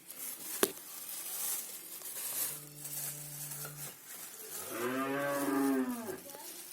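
A cow mooing twice: a flat, level call, then a louder one that rises and falls in pitch. A sharp metallic click comes just before, under a background hiss.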